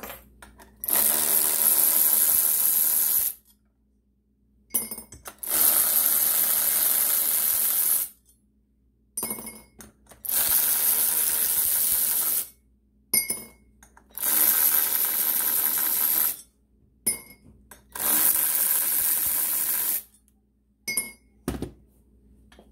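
Electric power drill or driver running on bolts in five steady runs of about two to three seconds each, with short metal clinks in the pauses between.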